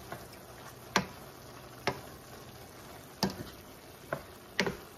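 Thin-sliced beef and onions sizzling in a stainless steel skillet while being stirred with a silicone spoon, with several sharp taps of the spoon against the pan.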